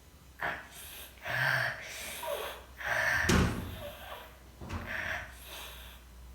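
A sleeping baby's noisy, snoring breaths, four of them, about a second and a half apart, with a sharp knock about three seconds in.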